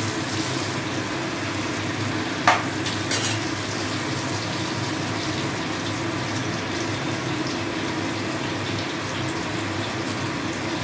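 Chopped onion and capsicum sizzling steadily in hot oil and butter in a frying pan, with two short knocks of a utensil against the pan about two and a half and three seconds in.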